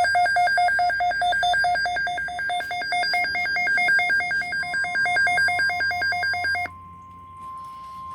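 Weather alert radio's electronic alarm warbling rapidly between two tones, several changes a second. A little past halfway the steady single-pitch NOAA Weather Radio warning tone sounds beneath it. The warble cuts off about a second and a half before the end, leaving the warning tone alone and much quieter.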